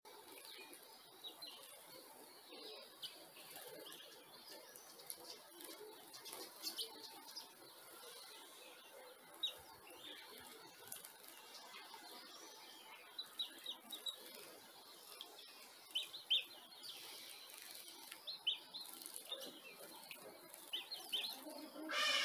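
Garden birds at a birdbath, with scattered short high chirps over a faint outdoor background. A much louder, buzzy bird call starts near the end.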